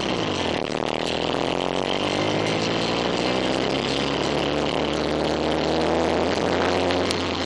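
Car engine accelerating, its revs climbing steadily for several seconds, then dropping back near the end as at a gear change.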